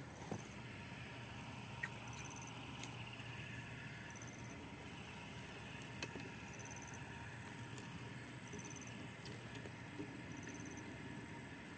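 Faint outdoor ambience with a steady low hum, a few light clicks and knocks from handling, and a short high chirp that recurs every couple of seconds.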